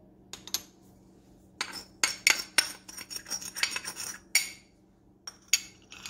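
A quick run of sharp clicks and clinks of kitchen utensils and containers against a glass mixing bowl, bunched together from about one and a half seconds in to past four seconds, with two more single clicks near the end. A faint steady hum runs underneath.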